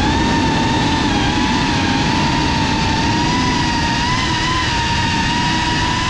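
FPV quadcopter's motors and propellers whining steadily, heard from the drone itself. The pitch wavers slightly with throttle over a dense low rushing noise.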